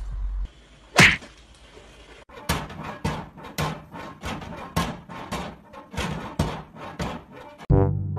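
A cat flap clacking against its frame as a cat paws at it: one loud bang about a second in, then a run of lighter taps, about three a second. Music comes in near the end.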